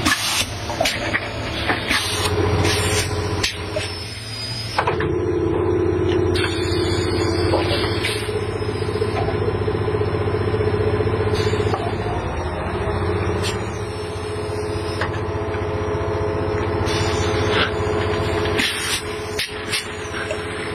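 PET bottle blow-molding machinery running: a steady mechanical hum with several fixed tones, broken by irregular sharp clicks and short hisses.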